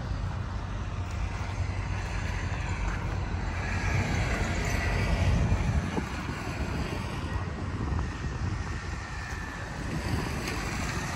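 Steady low vehicle rumble with wind noise on the microphone, swelling a little about halfway through.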